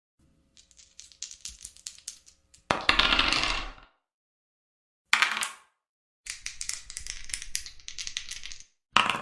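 Dice rattling and rolling in several separate bursts: a stretch of quick light clicks, then a louder, denser tumble about three seconds in, a short roll around five seconds, more quick clicking, and another loud tumble near the end.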